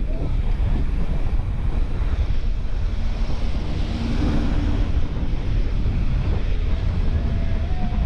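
Wind buffeting the microphone of a bicycle rider speeding downhill: a loud, steady low rumble of rushing air.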